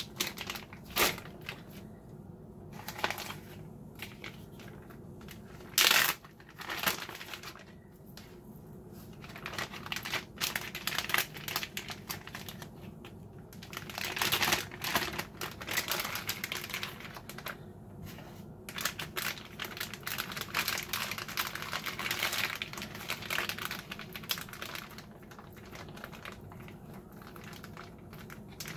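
Plastic zipper freezer bags crinkling and rustling as they are handled, filled with steaks and pressed shut along the zip seal, in irregular bursts. There is one sharper knock about six seconds in.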